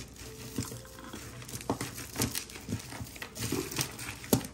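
Hands rummaging among loose jewelry and its packaging: crinkling and rustling with scattered small clicks and taps. A sharp click near the end is the loudest.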